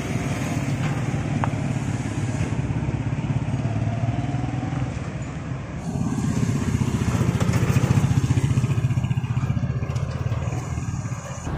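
Small motorcycle engine running at low speed with a fast, even putter while it tows a two-wheeled cargo trailer; the sound shifts about six seconds in.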